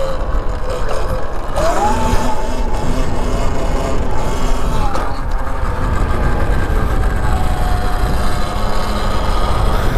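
Motorcycle engine revving up sharply about two seconds in, then held at speed, with heavy low rumble from wind on the microphone.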